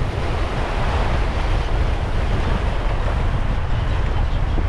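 Wind buffeting the microphone over steady sea surf washing in.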